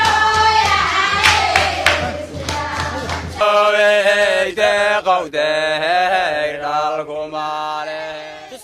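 Group singing over sharp percussive strikes and a steady low hum. About three and a half seconds in, it cuts to a chanted sung line without accompaniment.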